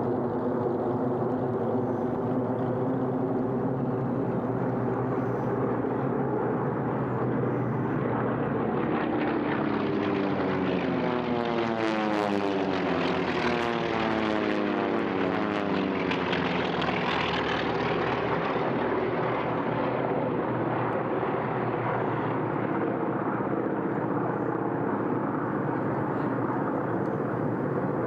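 Piston-engine propeller aircraft droning steadily, with one flying past near the middle: the sound brightens and the engine note slides down in pitch as it goes by, then settles back to a steady drone.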